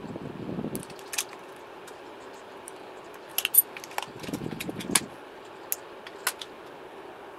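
Cylindrical lithium-ion cells being pried out of an electric skateboard battery pack by hand. Scattered sharp metallic clicks and clinks from the cell cans and tabs come with two bursts of rustling from the torn plastic heat-shrink wrap, one at the start and one about four and a half seconds in.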